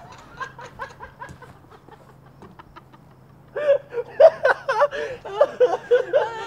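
Laughter: a few soft chuckles at first, then loud, rapid laughing from about three and a half seconds in.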